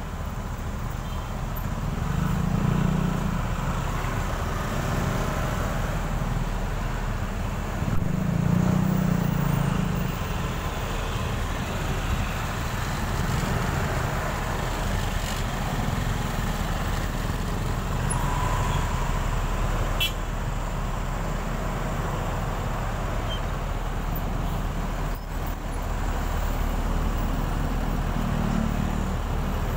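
Motorcycle and car traffic in a heavy jam, heard from a moving motorbike: a steady mix of engine and road noise, with a deeper engine rumble swelling a few times.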